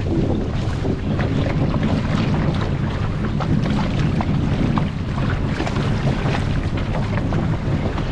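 Wind buffeting the microphone on a small open fishing boat, a steady low rumble with short splashy crackles of water over it.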